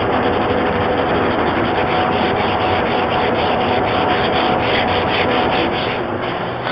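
Abrasive paper rubbed by hand along the molding of a stripped wooden door, in rhythmic back-and-forth strokes: hand-sanding bare wood after the old paint has been removed.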